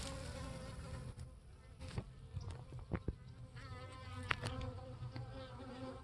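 Honey bees buzzing around a hive entrance, a steady hum, with a few faint ticks and knocks scattered through it.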